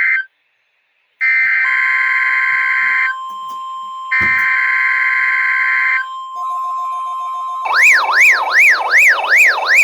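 NOAA Weather Radio test transmission: buzzy digital SAME header bursts, three of them, then a steady 1050 Hz NWS warning alarm tone starting about a second and a half in. From about eight seconds in a siren-like alert tone sweeps up and down about three times a second over it.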